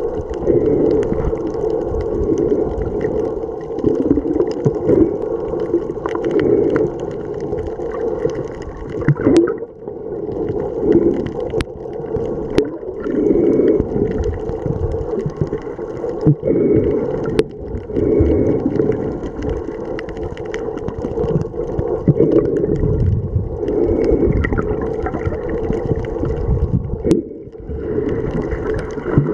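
Underwater sound heard through a waterproof camera: a muffled, steady rushing and gurgling of water and bubbles around swimming snorkelers, with a few sharp clicks.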